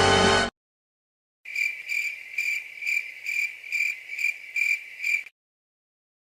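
Music cuts off abruptly about half a second in. After a short silence comes a crickets sound effect: a steady run of short, high chirps, about three a second, lasting about four seconds.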